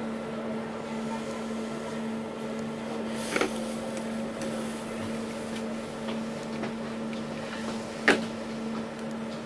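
Steady hum of an express passenger boat's engines and machinery, with two short knocks, one about a third of the way in and one near the end.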